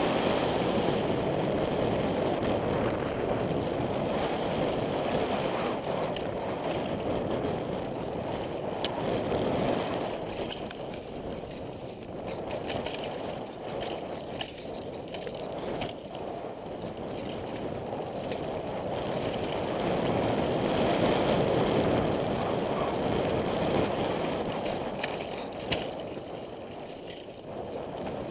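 Downhill mountain bike ridden fast on a dirt and rock trail, heard from a helmet camera: a steady rush of wind on the microphone with tyre noise, and scattered clicks and rattles from the bike over rough ground. The rush swells and eases with speed, loudest through the first third and again a little past two-thirds through.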